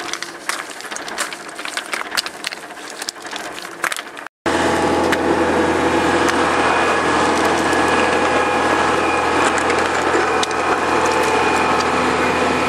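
Loose riprap stones clacking and knocking against each other as they are set by hand, a quick scatter of sharp knocks. After a sudden cut about four seconds in, a steady, louder engine drone with a low hum takes over.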